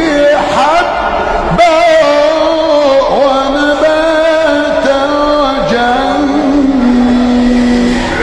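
A male reciter chanting the Quran in a melodic tajweed style, drawing out long ornamented notes that waver in pitch, with a steadily held note near the end.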